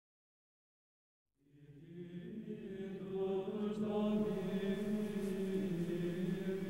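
Silence, then male voices chanting fade in about a second and a half in, holding long sustained notes in a low, plainchant-like drone.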